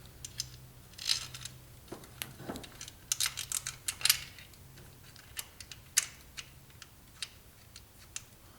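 Small metal parts and tools being handled: irregular clinks, taps and short rattles, with a cluster of quicker clinks about three to four seconds in, from timing-chain work on an engine.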